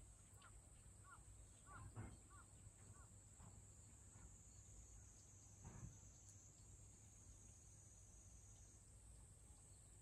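Faint outdoor ambience in light rain: a steady high-pitched insect drone, a run of short chirping animal calls in the first few seconds, and two soft thumps about two and six seconds in.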